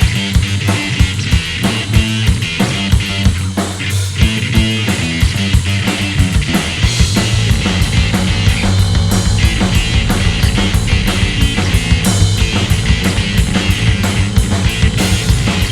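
Three-piece rock band playing live: a drum kit keeping a fast, steady beat under guitar and bass guitar, with no singing.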